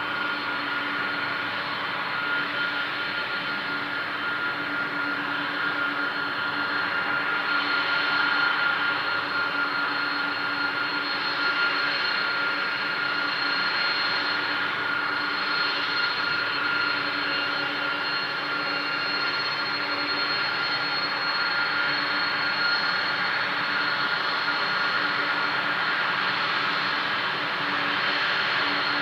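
Boeing 747-400's four jet engines running at low taxi power: a steady rushing whine with a high, thin tone over it, growing slightly louder as the jet turns.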